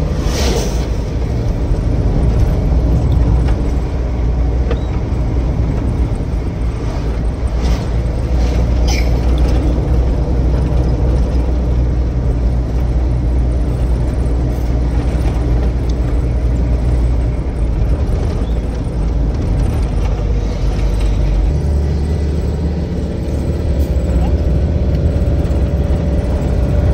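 A motor vehicle driving along a highway, heard with a steady low engine and road rumble. In the last few seconds the engine note changes and a slowly rising tone comes in as it picks up speed.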